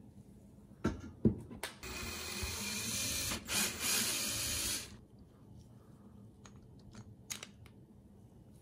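Cordless drill-driver running steadily for about three seconds as it backs a screw out of a chainsaw's housing, with a few sharp clicks just before it starts.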